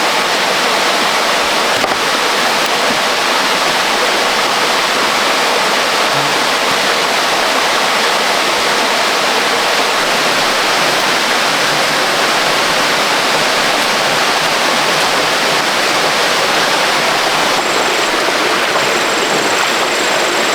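Waterfall and rapids rushing: a loud, steady hiss of falling water with no change throughout.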